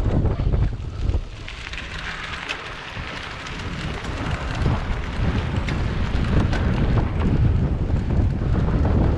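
Wind buffeting the microphone of a cyclocross rider's camera at race speed, with the tyres hissing and crunching over a dirt and gravel track and small rattles from the bike. The wind rumble eases about a second in and builds back up by the middle.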